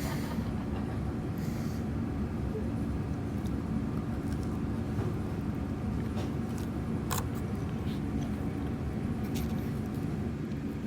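Steady mechanical hum of a shop's room background, such as kitchen ventilation or equipment, with a few faint clicks scattered through it.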